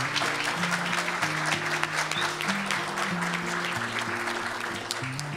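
Audience applauding: a dense, even clatter of many hands clapping. Background music with a slow-moving bass line plays underneath.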